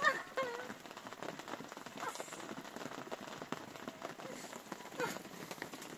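Rain pattering steadily on a plastic tarpaulin tent roof, heard from inside the tent as a dense patter of small drops.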